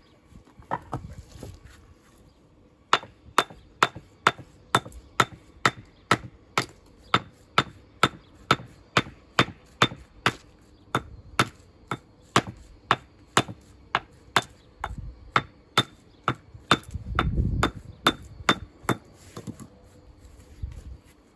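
Mason's hammer dressing stone: a steady run of sharp, ringing blows, about two to three a second, starting a few seconds in and stopping near the end. A brief low rumble comes under the blows toward the end.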